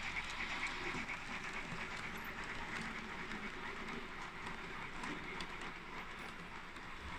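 Märklin model train, a steam tank locomotive hauling passenger coaches, rolling along the track with a steady running noise and light clicks from the wheels.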